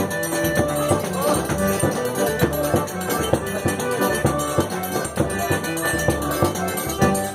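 Forró dance music: sustained melody tones over a steady, even percussion beat with a shaker-like rattle.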